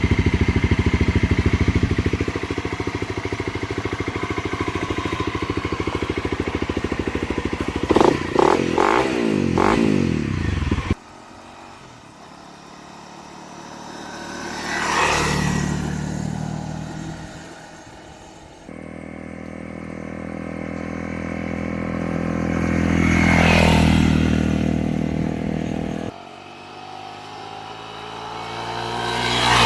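Honda CRF250L dirt bike's single-cylinder engine idling, then blipped several times about eight seconds in. After that the motorcycle is ridden past three times, each pass rising to a peak and dropping in pitch as it goes by.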